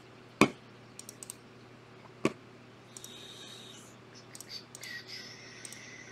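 Computer mouse and keyboard clicks. Two sharp clicks, about half a second and two seconds in, are the loudest, with lighter scattered clicks around them.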